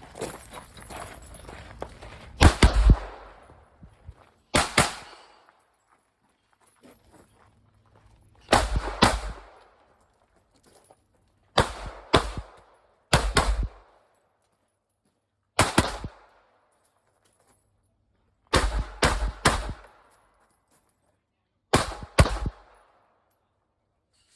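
Gunshots from a shooter running a competition stage, fired mostly in quick pairs and triples with pauses of a few seconds between strings as targets are engaged.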